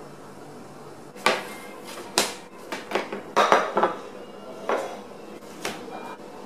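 Kitchenware handled and set down on a kitchen counter: a run of sharp clinks and knocks, thickest in the middle, with a couple of single knocks later.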